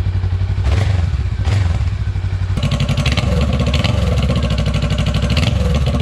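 Honda Rebel 500's parallel-twin engine running, with two short throttle blips in the first two seconds. About two and a half seconds in, it changes to a louder, rougher pulsing note that holds.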